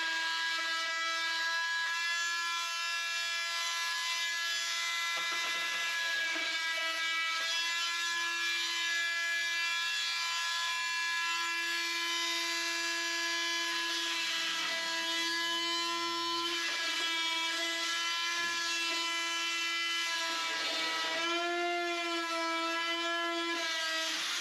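A power tool running steadily with a high, even whine. Its pitch sags and wavers a little at times, as if bearing on the work.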